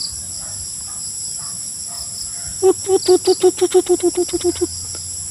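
White-eared brown dove calling: a run of about a dozen low hoots that speed up and fade away, over a steady high-pitched chorus of insects.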